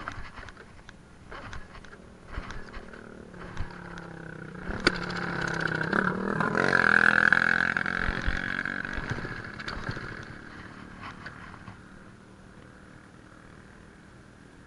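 A motor vehicle passes on the road, its engine sound swelling to a peak about halfway through and then fading away. A few small knocks and clicks come before it.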